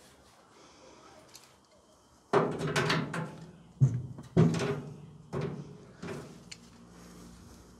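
Sheet-metal cabinet panel of an Electrolux clothes dryer being bent with pliers to work out a dent: about five metallic clunks and creaks of flexing steel, each ringing briefly, starting about two seconds in.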